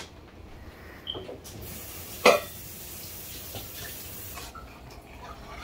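Liquid sloshing as a long metal spoon stirs a large aluminium pot of vermicelli in pink, cherry-tinted milk, with a soft watery hiss. One sharp clack comes a little over two seconds in.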